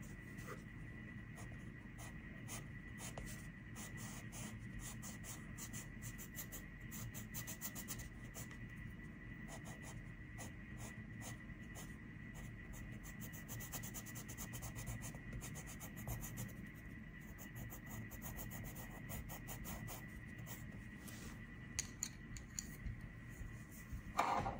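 Coloured pencil scratching on paper in rapid back-and-forth shading strokes. A couple of louder knocks come near the end.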